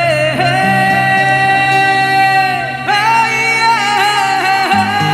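Opening of a slow, sad Hindi song: a melody of long held notes over sustained bass notes, with a new phrase starting about three seconds in.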